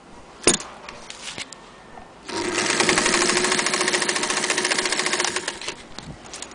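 Singer 201K electric sewing machine stitching fabric: a sharp click about half a second in, then about two seconds in the machine starts and runs at an even, rapid stitch rate for about three seconds before slowing and stopping.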